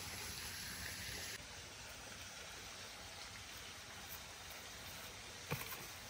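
Faint, steady running of a shallow stream, slightly quieter after about a second and a half, with one sharp knock near the end.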